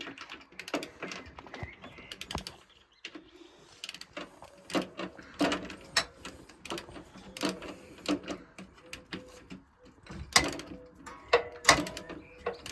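Irregular metal clicks and clinks of a socket wrench being worked on a gearbox drain plug in a cramped spot, with a cluster of sharper, briefly ringing knocks near the end.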